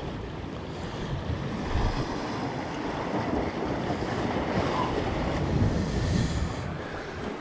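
Sea surf washing against the rocks of the shore, with wind buffeting the microphone.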